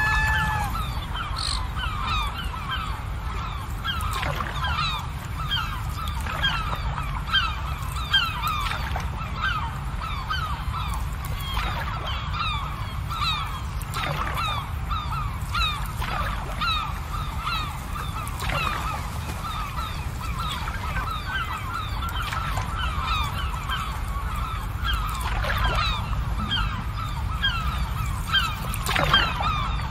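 A flock of birds calling continuously, many short overlapping calls, over a steady low rumble.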